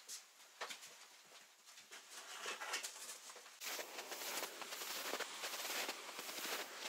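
Light knocks and rustling, then, after about three and a half seconds, steady crunching footsteps in dry snow.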